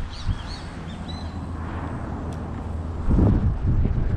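A few short, high bird chirps in the first second or so over a steady low rumble, which grows louder about three seconds in.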